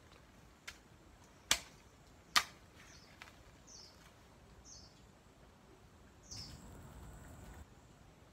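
A hoe striking the soil twice in quick succession, sharp and loud, with a couple of softer knocks around them. A small bird chirps over it in short, falling notes about once a second.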